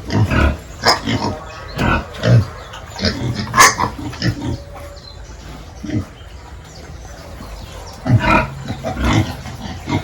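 Pigs grunting in short, irregular bursts, with a quieter stretch a little past the middle.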